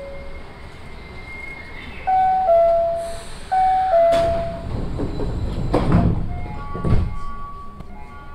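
Inside an Osaka Monorail car, a two-note descending chime sounds twice. It is followed by the low rumble of the car running, with a few heavy thumps.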